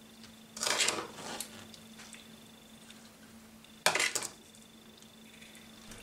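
A metal spoon clattering against a small bowl of spice mix, twice: once about half a second in for under a second, and again briefly about four seconds in. Between the two only a faint steady hum is heard.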